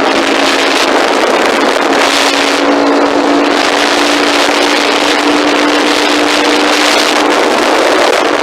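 An engine running steadily at constant speed: an even hum under a loud hiss, with no change in pitch.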